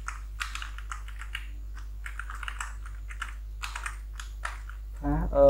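Typing on a computer keyboard: irregular, quick keystroke clicks over a steady low hum. A voice starts near the end.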